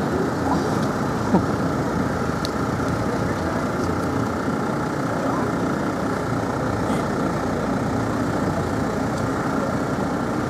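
Crowd of spectators chatting, a steady murmur of many voices, with one short louder sound about a second and a half in.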